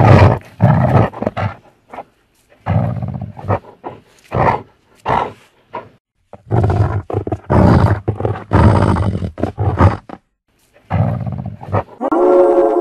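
Horror-style werewolf voice: a run of deep snarling growls and roars, each lasting up to about a second and a half, broken by short gaps. Near the end a long held pitched cry begins.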